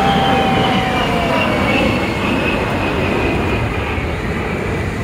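A pair of A-10 Thunderbolt II (Warthog) jets flying past: a loud rumble from their twin TF34 turbofan engines with a high whine that drops in pitch about two seconds in as they pass, easing off a little toward the end.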